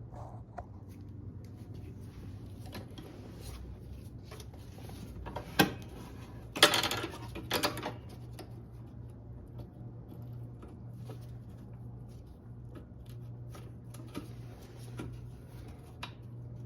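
Small clicks and scrapes of a clip removal tool and metal parts being handled on a lawnmower's rear wheel adjuster, with one sharp click a little over five seconds in and a louder metallic clatter from about six and a half to eight seconds. A steady low hum sits underneath.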